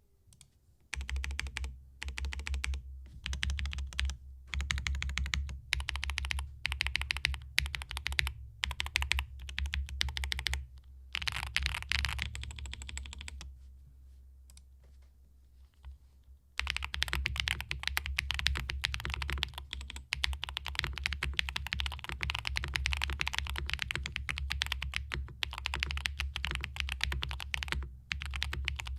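Typing on a Neo75cu mechanical keyboard fitted with Gateron Baby Kangaroo V2 tactile switches, a polypropylene plate and full case foam. Short bursts of keystrokes broken by brief pauses at first, a lull a little before halfway, then a steady run of fast typing.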